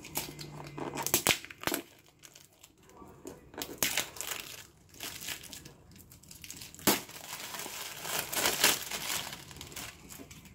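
Wrapping being picked at, torn and peeled off a cardboard product box by hand, crinkling in irregular bursts, with one sharp snap about two-thirds of the way in.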